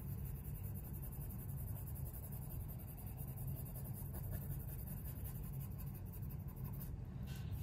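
Coloured pencil shading on paper: a soft, steady scratching of the pencil lead stroking back and forth.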